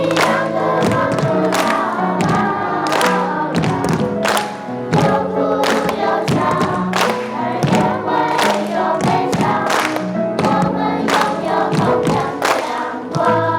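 A choir singing, with frequent sharp thumps or knocks sounding among the voices.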